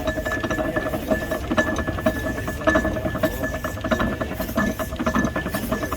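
Steam traction engines on the move: rapid clanking and clicking of their gearing and motion over a steady high tone.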